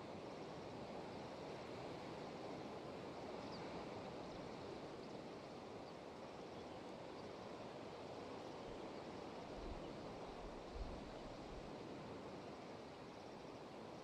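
Distant ocean surf breaking on a rocky shore below a cliff: a faint, steady wash of noise, with a thin high chirring of crickets above it. About two-thirds of the way through there is a brief low rumble and a small thump.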